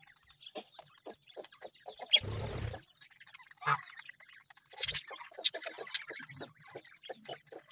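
Budgerigars chirping and chattering in short, sharp calls, mixed with low clucks from fowl in the same enclosure. A brief burst of noise comes about two seconds in.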